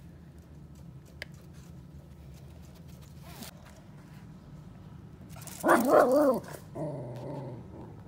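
West Highland White Terrier puppy giving a loud, wavering cry about a second long, about five and a half seconds in, then a softer, shorter one, at the sight of a cat.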